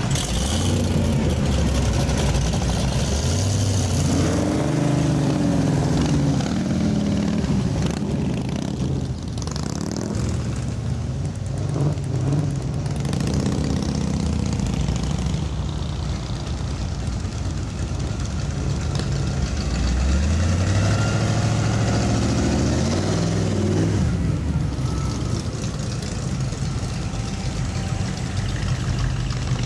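Classic cars and hot rods driving past one after another, their engines rumbling, with a couple of rising revs as cars pull away.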